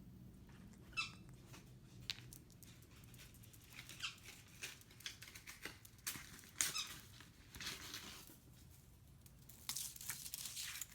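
Green cheek conure giving short, faint squeaks and chirps, mixed with brief scratchy noises.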